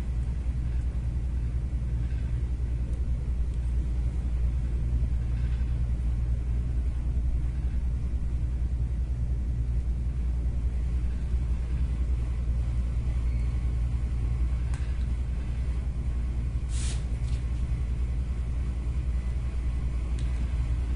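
Steady low background hum, with a brief hiss about seventeen seconds in.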